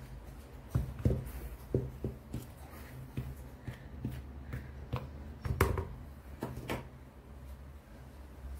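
Hand stirring flour in a plastic mixing bowl: soft rustling with a series of light knocks against the bowl, the strongest a little past the middle. A steady low hum runs underneath.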